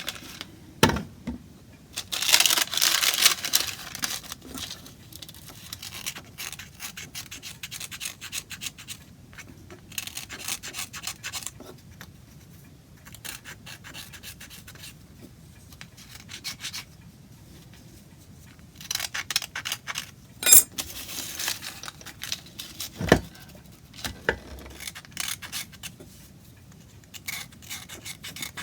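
A hand tool scraping and rubbing on wood in runs of quick, rasping strokes with pauses between them, and a couple of sharp knocks, about a second in and near the end.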